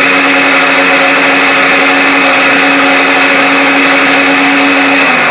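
Countertop blender motor running steadily at speed, blending yogurt, sugar and mango into a lassi. Its pitch dips slightly near the end.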